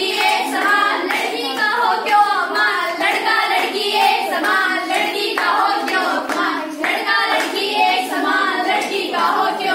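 A group of girls singing together while clapping their hands in time.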